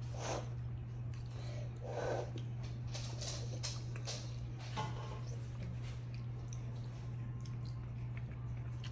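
Close-up mouth sounds of eating spaghetti and meatballs: chewing, with wet smacks and clicks clustered about three to five seconds in, over a steady low hum.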